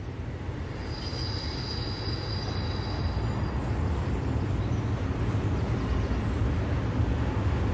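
Diesel railcar approaching along the track, its engine and running gear rumbling low and steadily and growing louder as it comes closer. About a second in, a thin high squeal sounds for about two seconds.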